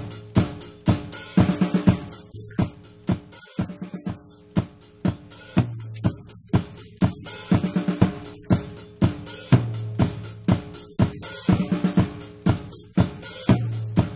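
A recorded drum kit playing a steady beat (kick, snare, hi-hat and cymbals), with low pitched notes, like a bass line, held under it every few seconds.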